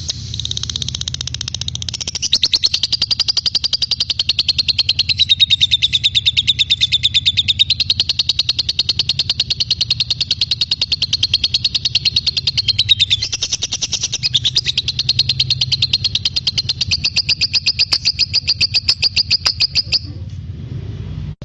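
Lovebird singing one long, rapid, high chattering trill whose pitch wavers up and down, with a brief dip about two-thirds of the way through and a stop shortly before the end, over a steady low hum.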